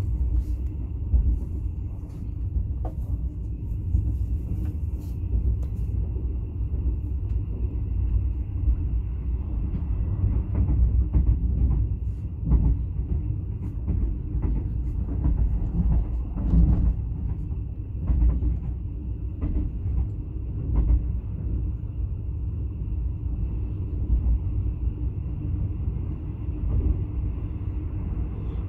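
Passenger train carriage rumbling along the track, heard from inside the coach, with scattered clacks and rattles over the running noise.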